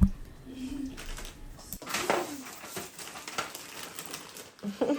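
A small child making soft cooing vocal sounds, a short low coo about half a second in and then a few faint babbles.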